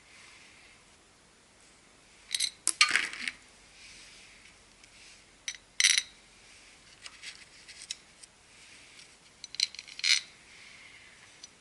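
Small metal tools and parts clinking against each other while being handled: three main clusters of sharp, bright clinks, with a few lighter ticks in between.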